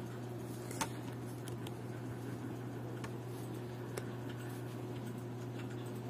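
A few faint clicks from a hand handling a plastic and die-cast model car, the clearest about a second in, over a steady low hum.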